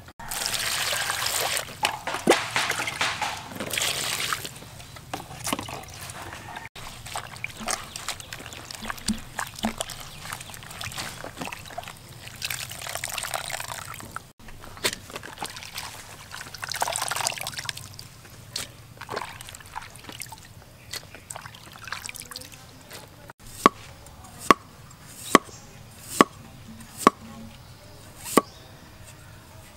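Wet squelching as hands knead raw cow brains in a bowl. Then water sloshing as enoki mushrooms are washed in a basin of water. Near the end a cleaver knocks down onto a wooden chopping board about seven times, slicing a pale root.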